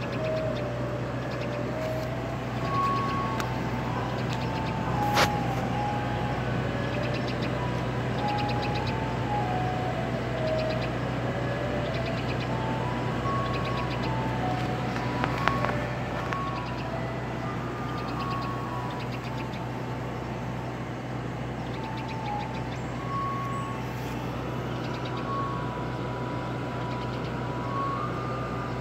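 Ice cream truck's chime jingle playing a simple looping tune of single notes over a steady low engine hum. Two sharp clicks stand out, about five seconds in and again about ten seconds later.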